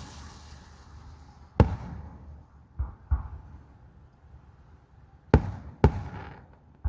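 Fireworks shells bursting: six sharp booms, irregularly spaced, the loudest about a second and a half in and again past five seconds.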